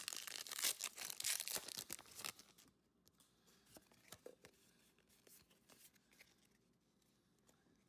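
Foil wrapper of a Pokémon TCG booster pack being torn open, a dense crinkly tearing that stops about two and a half seconds in. A few faint ticks of handling follow.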